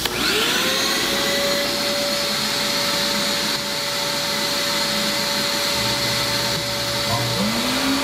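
A vacuum switched on, its motor spinning up with a rising whine and then running steadily, over the steady running of an air compressor and a steam cleaner. Near the end a second machine's motor spins up with a lower whine and joins them.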